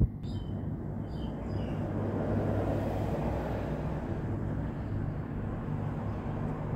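Steady low rumble of engines and traffic, swelling a little around two to three seconds in. There is a sharp knock at the very start, and a few short high squeaks in the first two seconds.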